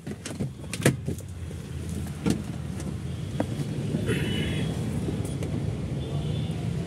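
Mercedes GLA 200's engine running at idle, a steady low hum that builds over the first two seconds, with a few sharp clicks and knocks from handling inside the cabin.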